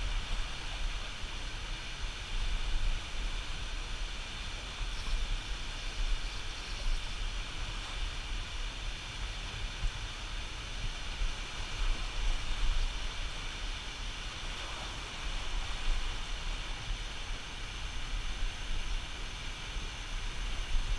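Steady rushing of water at a lock and dam, with an uneven low rumble of wind on the microphone.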